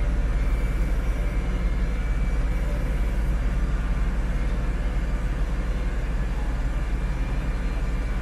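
Massey Ferguson tractor's diesel engine running steadily as the tractor moves slowly down a dirt road, heard from the driver's seat.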